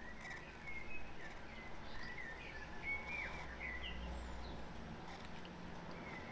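Birds chirping in the background: a string of short, quick chirps that slide up and down in pitch, over a faint low rumble.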